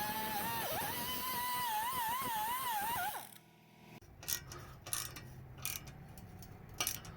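A dog whining or howling in one drawn-out wavering cry that cuts off about three seconds in. Then come scattered sharp clicks and knocks, like metal tools handled at work.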